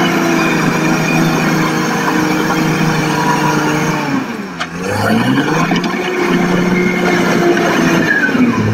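Diesel engine of a Caterpillar crawler bulldozer running hard. Its note drops sharply about halfway through as the machine slows and changes direction, then climbs back. It starts to drop again near the end.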